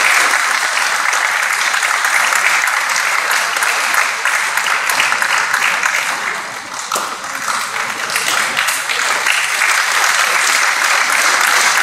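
Audience applauding, a steady stream of many hands clapping that dips briefly about two-thirds of the way through and then picks up again.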